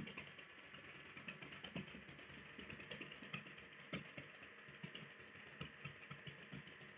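Feet stamping quickly in place on a floor: a faint, irregular patter of light thuds during a foot-stamping cardio drill.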